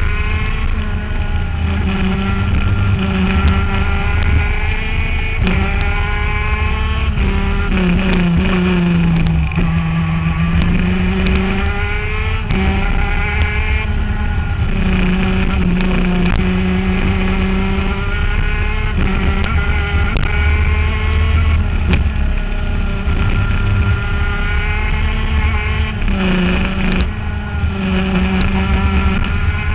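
ICC 125 shifter kart's 125 cc two-stroke engine heard on board while lapping at speed, its pitch climbing through each gear and dropping sharply at every upshift. There are longer falls in pitch where it slows for corners before climbing again.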